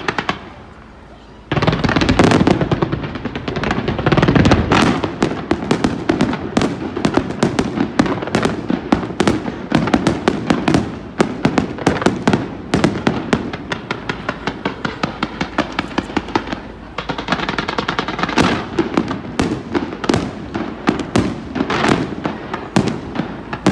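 Fireworks display: after a brief lull about a second and a half in, a dense, continuous run of bangs and crackles, many shells going off each second.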